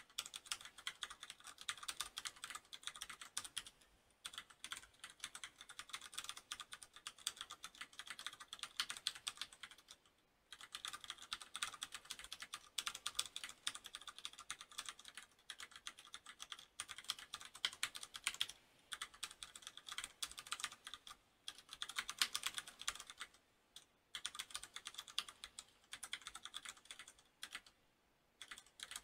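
Typing on a FILCO Majestouch tenkeyless mechanical keyboard with Cherry MX Brown switches: rapid runs of key clicks and bottom-out clacks, broken by short pauses every few seconds.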